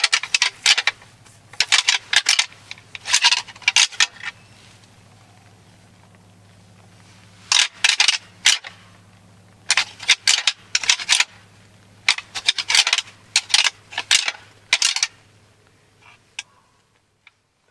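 Crunching and rustling in dry leaves and brush, in irregular clusters of crackles every second or two, with a pause of about three seconds partway through; they stop near the end, and a faint steady hum runs underneath.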